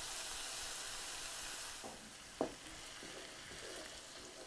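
Pizza sauce sizzling as it hits a hot skillet of browned sausage, peppers and onions, with the burner just turned off. The sizzle fades after about two seconds, with a single knock about halfway in and soft stirring after.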